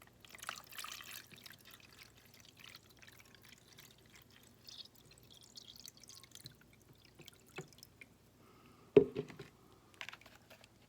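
Water poured into a pet water fountain's reservoir, then dripping and light handling clicks, with one sharp knock about nine seconds in.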